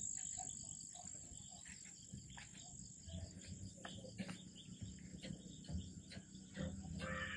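Night-time crickets, a steady high-pitched trill.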